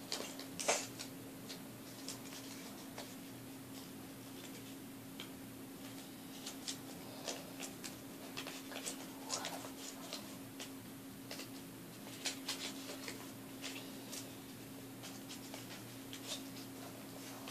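Paper being handled and folded on a table: scattered soft rustles and light taps, over a steady low hum.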